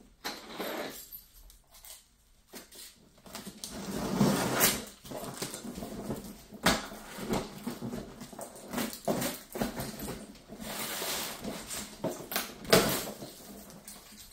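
Cardboard shipping box and its packing being opened and handled: irregular rustling and scraping with sharp knocks, loudest about four seconds in and again near the end.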